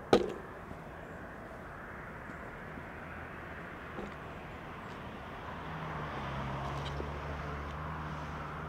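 A sharp click at the very start, then a steady outdoor hiss. A bit past halfway, a low, steady engine hum comes in and grows slightly louder.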